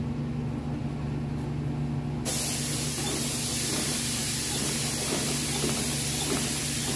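Juki industrial sewing machine stitching vinyl over foam, with a low steady hum. About two seconds in, a loud, even hiss, like compressed air, cuts in suddenly and stays on.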